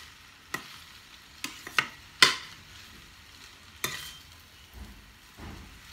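A metal utensil clinking and scraping against a stainless steel frying pan as noodles are stirred and tossed, about five sharp clinks with the loudest a little past two seconds in. A faint steady hiss runs underneath, and a low dull rumble comes near the end.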